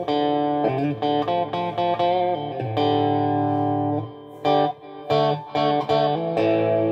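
Electric guitar played on selector position two, bridge and middle pickups together, its pickups fitted with neodymium magnets behind the pole pieces: a run of chords and notes, with a chord held in the middle and several quick strums after it. The pairing now sounds in phase, no longer thin and out of phase.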